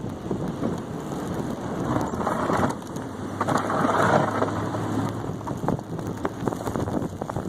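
Pickup truck with a snowplow blade pushing through deep snow: the engine runs under load with a steady low hum, and a louder rushing noise swells up twice, about two and four seconds in.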